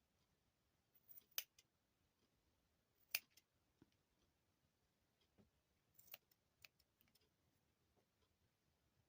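Scissors snipping through wrapped yarn loops, a few sharp snips spaced a second or more apart, the loudest about a second and a half and three seconds in.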